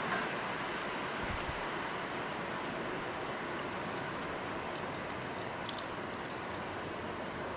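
A steady rushing background noise, with a cluster of light, irregular taps from about four to six seconds in: a red-naped sapsucker pecking at aspen bark.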